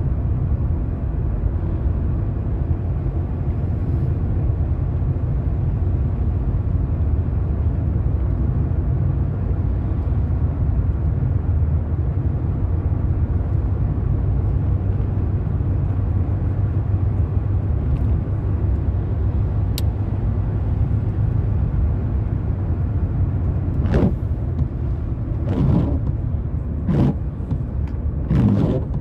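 Steady low rumble of a car driving on a wet road, heard from inside the cabin. There is one sharp click about two-thirds of the way through, and near the end four short sweeping sounds about a second and a half apart.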